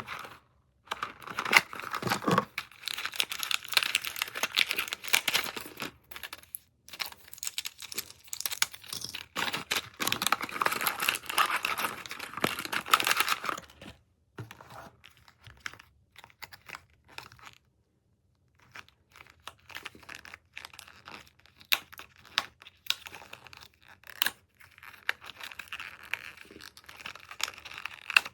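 Close crinkling and rustling handling noise, full of small sharp crackles, in two long stretches with a gap of a few seconds in the middle.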